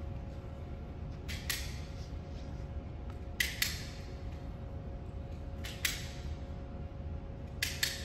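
Hand tools working electrical wire, cutting, stripping and crimping ferrules, give sharp clicks in pairs about every two seconds over a steady background hum.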